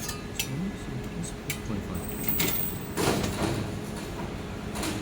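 Handheld laser welder firing on thin sheet metal: a few sharp clicks, then short hissing, crackling bursts about three seconds in and again near the end, over a steady low hum.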